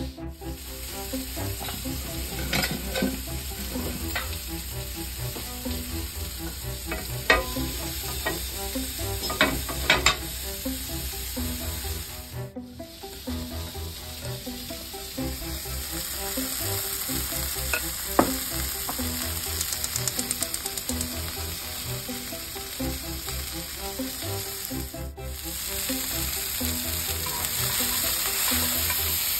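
Wire whisk stirring sourdough pancake batter in a glass measuring jug, the wires clinking against the glass now and then. Near the end, sausage links sizzle in a cast iron skillet as they are turned with tongs.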